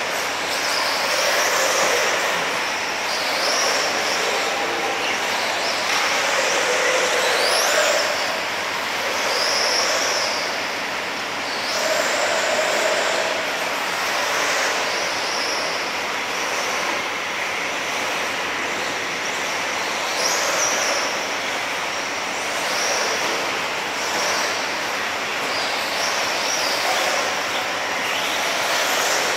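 1/8-scale electric off-road RC buggies, including Tekno EB48s, running laps: high-pitched brushless motor whines that rise and fall as the cars accelerate and back off, over a steady noisy wash.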